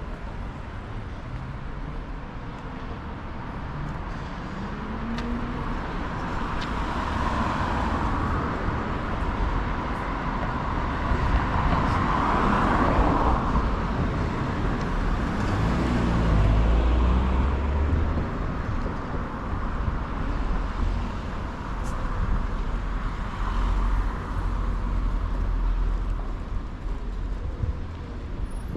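Street traffic: several cars driving past, their tyre and engine noise swelling and fading in turn, loudest a little before halfway, with a deeper engine rumble passing just after.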